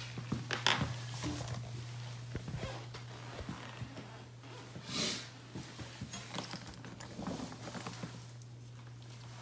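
Scattered knocks, scrapes and rustles of plastic storage bins and a suitcase being bumped and shifted, with one louder rushing scrape about halfway through, over a steady low hum.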